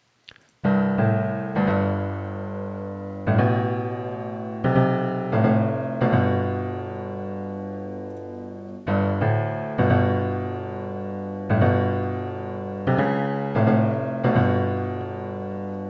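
Piano track playing a chordal riff twice. The first pass is dry; the second, starting about nine seconds in, runs through the C-C- -01 signal-enhancer plugin, which adds sine tones near 4.9 kHz on the mid signal and 143 Hz on the side signal to shift the piano's frequency focus.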